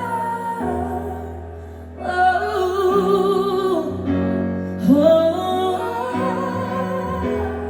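Female singer performing a pop ballad live with band accompaniment, holding long notes with vibrato over steady bass notes. The vocal phrases come in about two seconds and five seconds in.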